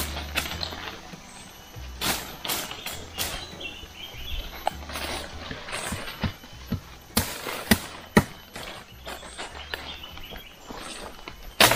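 Machete blows chopping a green sapling, a series of sharp cracks, the loudest a few seconds past the middle and again near the end, amid rustling leaves and branches.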